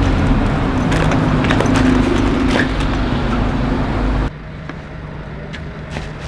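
Road traffic noise with a vehicle engine running close by, its hum rising slightly in pitch midway. It cuts off abruptly about four seconds in, leaving a quieter background with a low hum and a few light clicks.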